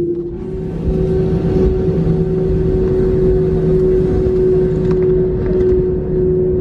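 Airbus A321 jet engines heard from inside the cabin: a steady whine over a broad rumble. About half a second in, the rumble grows and the whine steps slightly up in pitch as the engines spool up.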